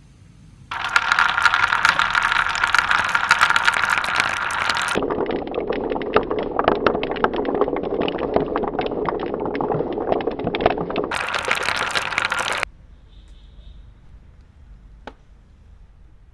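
Marbles rolling and clattering down a plastic Trix Track marble run as a dense stream of clicks. It starts about a second in, turns duller and lower-pitched after about four seconds, turns bright again near the end, then stops suddenly, leaving one faint click.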